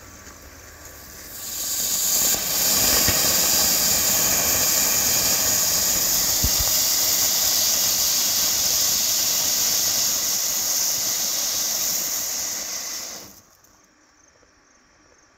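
Starvell 'Magical Peacock' five-nozzle firework fountain spraying sparks with a steady loud hiss. The hiss builds over the first two seconds and dies away quickly about thirteen seconds in, as the fountain burns out.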